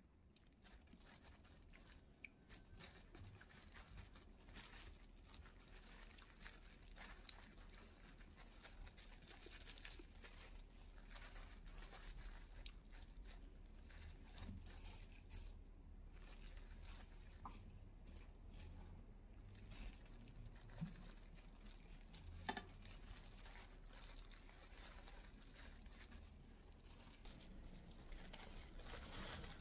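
Faint, continuous crackling and crinkling, typical of food preparation, with two sharper clicks about two-thirds of the way through over a low hum.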